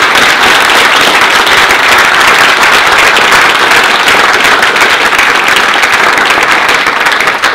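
Conference audience applauding, a dense, steady round of many hands clapping that begins to thin out near the end.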